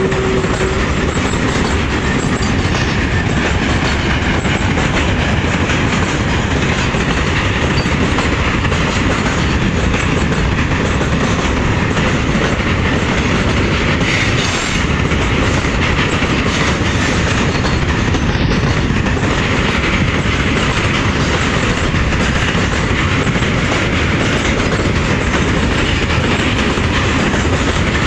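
Loaded BOXN open goods wagons rolling past at close range: a loud, steady rumble with the clickety-clack of wheels over the rail joints. A steady tone fades out about a second in.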